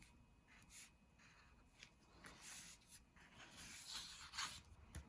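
Faint scratching of a drawing tool on paper: short colouring strokes, heaviest about two seconds in and again around four seconds in.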